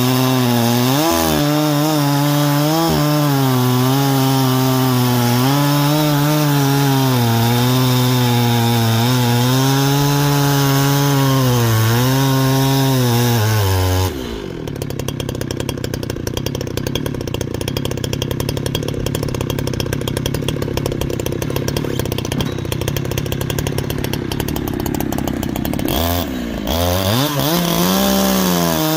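Holzfforma G372XP two-stroke chainsaw with a new full-chisel chain cutting through a maple log under load, its pitch wavering as it works. About halfway through the throttle is let off and the saw drops to a rough idle for about twelve seconds. Near the end it revs back up into another cut.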